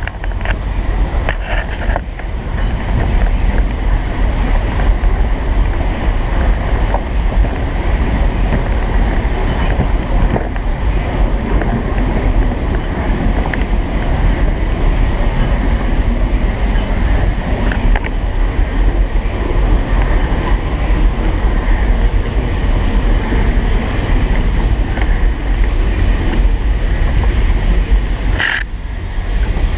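Steady rumble of a moving steam-hauled train from aboard, with wind buffeting the microphone.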